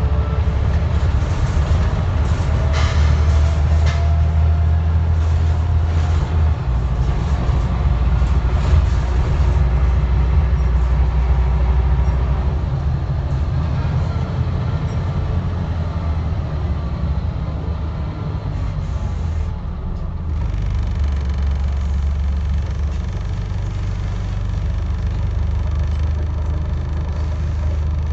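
Scania N94UD double-decker bus's diesel engine, heard inside the cabin from the rearmost seats: a loud, steady low drone with a faint rising whine in the first few seconds, dipping briefly about twenty seconds in.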